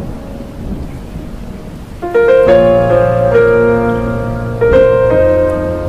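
Background piano music that comes in about two seconds in, playing sustained chords and notes, after a short stretch of steady hiss.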